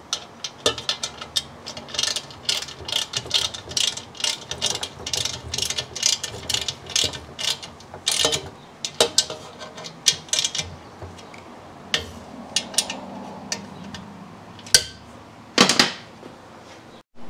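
Hand ratchet clicking in quick runs of strokes while the new front fender's mounting bolts are tightened onto the motorcycle's fork legs, followed by a few scattered clicks and two sharper knocks near the end.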